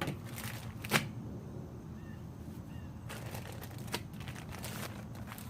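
A tortilla wrap being handled: light rustling and scattered clicks, the sharpest about a second in.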